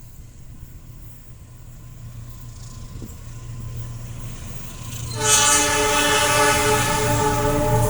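Approaching train's locomotive: a low engine drone grows steadily louder, then about five seconds in its horn blasts loudly with several notes at once, held to the end.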